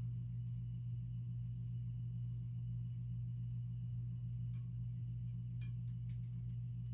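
Steady low hum, with a few faint light clicks about four and a half and six seconds in.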